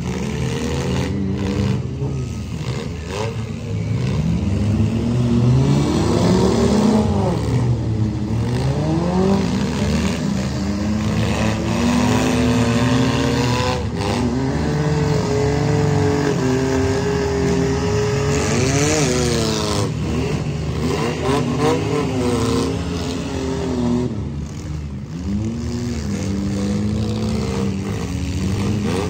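Several demolition derby compact cars' engines revving up and down over one another, with a few sharp crunches of cars colliding.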